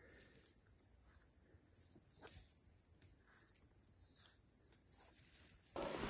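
Faint, steady high-pitched insect chirring in the bush, with a few light twig snaps and the soft rustle of branches being pushed aside. Near the end, a louder crunching of dry twigs and dead brush underfoot.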